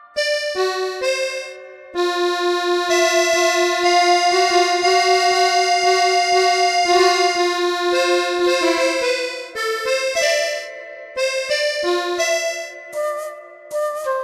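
Background music: a slow melody of long held notes.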